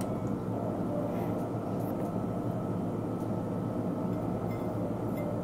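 A steady low hum and rumble at an even level, like a running machine or fan, with no distinct events.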